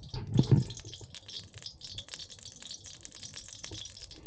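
Wood cooking fire crackling, a dense run of rapid, irregular small pops. A brief, louder low-pitched sound comes about half a second in.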